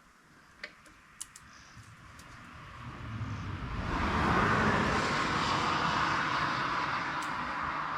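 Road traffic noise from a nearby highway swells over a couple of seconds into a steady rushing rumble, after a few light clicks at the start.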